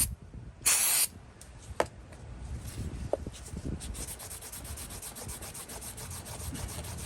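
A short hiss of aerosol cleaner about a second in, then steady rapid scrubbing on an old ratchet's grimy metal housing, working the dirt off so the maker's stamp shows.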